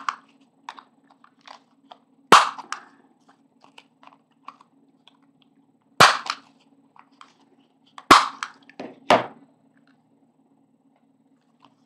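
Handheld corner rounder punch snapping through card stock four times, a couple of seconds apart, one sharp snap per corner as the card's corners are rounded. Light paper handling ticks between the snaps.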